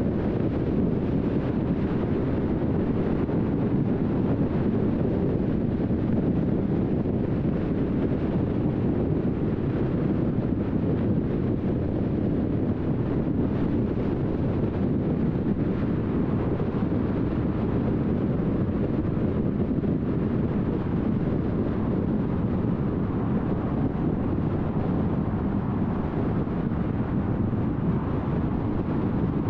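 A car driving at a steady speed: an even rumble of tyre and wind noise, with no changes in speed or separate events.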